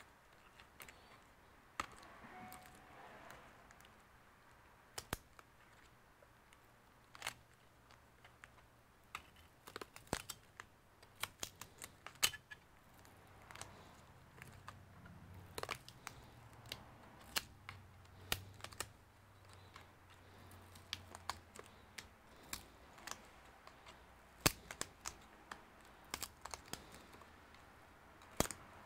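Scattered small clicks and ticks as a thin pry tool works along the plastic screen bezel of a Gigabyte Aero 15 laptop, prising it away from the double-sided tape holding it to the panel.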